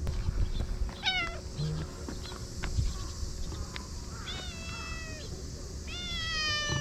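Domestic cat meowing three times: a short meow about a second in, a longer falling meow around four seconds, and another starting near the end.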